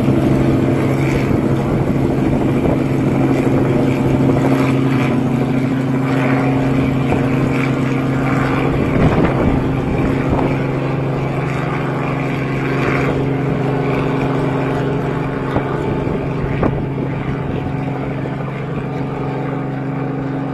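A helicopter flying with a junked car slung beneath it makes a steady engine and rotor drone with a constant low hum. The drone slowly fades as the helicopter moves away.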